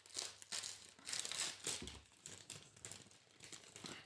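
Convenience-store food wrapper crinkling in irregular bursts as it is handled and unwrapped.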